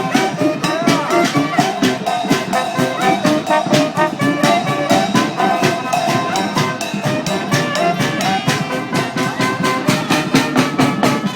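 Street brass band playing live, horns carrying the tune over a quick, steady drumbeat of about four strokes a second.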